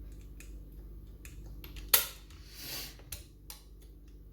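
Lever wire and tension tool working inside a five-lever mortice lock as the levers are lifted during picking: a few light metallic clicks, then a sharper click about two seconds in followed by a brief scrape, over a low steady hum.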